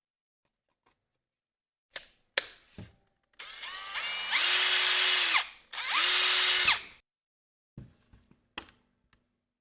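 Cordless drill run twice on the trigger: the motor spins up with a rising whine, runs for about two seconds, stops, then runs again for about a second before winding down. A few sharp clicks come before it, and light knocks after.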